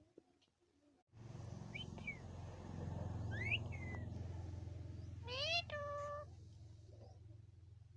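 A parrot calling: short whistled chirps that rise and fall, then a rising meow-like call followed by a brief flat whistled tone. These calls sound over a steady low hum that starts about a second in.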